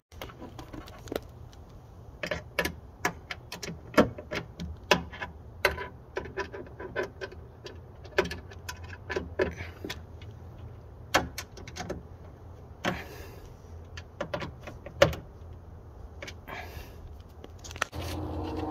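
Irregular clicks, taps and rustles of gloved hands handling a car tailgate's wiring harness, plastic connectors and clips, over a low steady hum.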